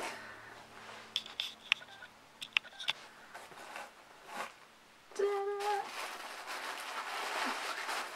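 Cardboard gift box handled with a few sharp clicks, then tissue paper rustling and crinkling as a hand goes into it. A brief hummed note comes about five seconds in.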